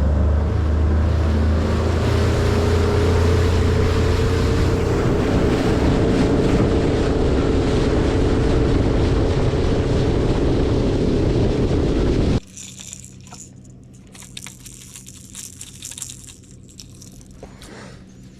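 Bass boat's outboard motor running at speed, a loud steady drone with a slowly rising pitch. About twelve seconds in it cuts off abruptly, leaving a much quieter background with scattered faint clicks and knocks.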